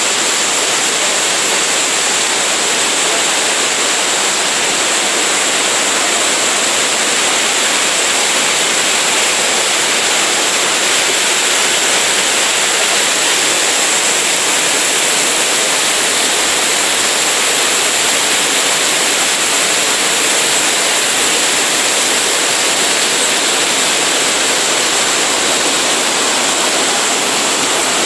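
Rapids and waterfall water rushing over granite boulders in a steady, even roar, with a thin high note running through it.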